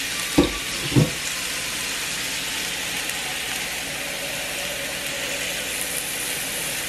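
Kitchen faucet running into a pot at the sink, filling it with water for boiling pasta. There are two sharp knocks about half a second apart in the first second, then the water runs steadily.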